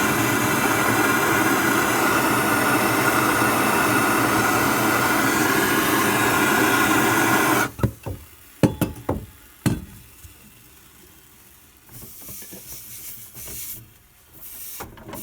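Gas soldering torch flame hissing steadily while it heats a copper pipe fitting for sweating. The flame is shut off suddenly about halfway through, followed by a few sharp clicks and knocks.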